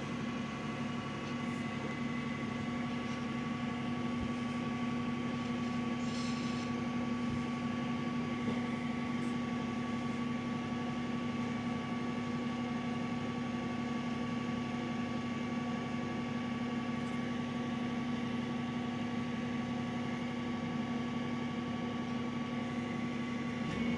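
McNeilus rear-loader garbage truck's diesel engine idling steadily, a constant hum with a steady higher tone over it. A brief high squeal comes about six seconds in.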